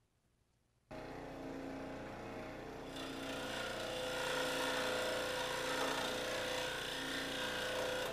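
Benchtop scroll saw running and cutting a thin wooden strip, starting suddenly about a second in. The cutting noise grows louder about three seconds in as the blade works through the wood.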